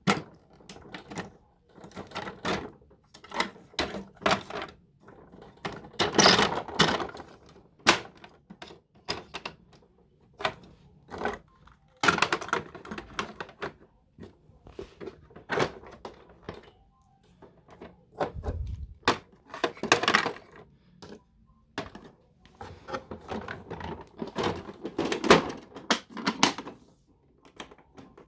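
Plastic toy vehicle being handled: a long run of irregular clicks, clacks and knocks of hard plastic parts, in clusters with short gaps, with a dull low thump about two-thirds of the way through.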